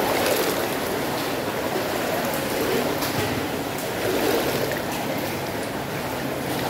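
Jacuzzi hot-water pool churning steadily, with light splashing as people move in the water.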